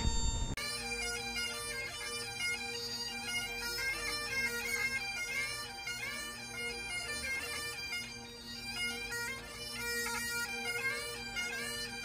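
Great Highland bagpipes playing a tune: a steady drone under a quick-moving chanter melody, which comes in after a sudden break about half a second in.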